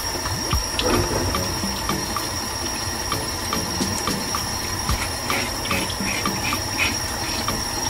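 Tap water running steadily into a stainless steel sink, with a few short knife-scraping sounds as green banana peel is cut away, about five seconds in.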